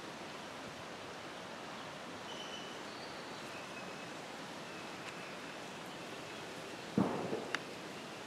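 Steady outdoor background hiss, with a few faint high chirps a few seconds in and a short rustle-thump about seven seconds in, followed by a click.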